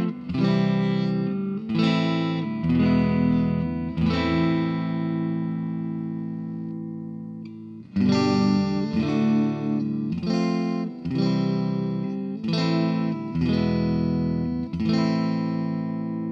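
Squier Stratocaster electric guitar played through a Vox AD-100VT XL amp. It plays a run of strummed chords and lets one ring out about four seconds in. A second run of chords follows, ending on a chord left to ring.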